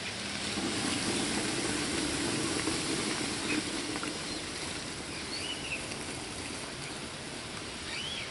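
Hydrochloric acid poured in a stream from a plastic pitcher into a plastic bucket of bubbling ore slurry, with a hissing fizz. The pour is loudest over the first few seconds, then eases.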